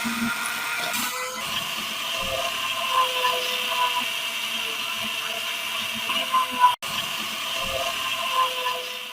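Electric rotary power tool running steadily while working on the rusty steel of an adjustable wrench during rust removal. Its tone wavers slightly with load, and the sound drops out for an instant about two-thirds of the way through.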